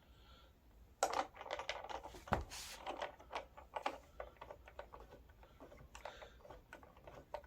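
Irregular clicking and knocking of plastic and metal parts being handled as a wheel, washer and nut are fitted onto the axle of a kids' ride-on quad. It starts about a second in, with one louder knock.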